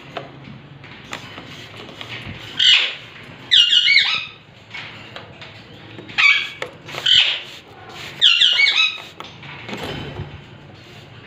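Alexandrine parakeets giving loud, short calls, some singly and two in quick runs of several notes.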